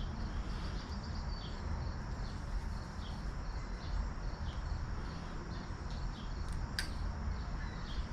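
Steady background hiss and low rumble with faint short high chirps every second or so, and a single sharp click about seven seconds in.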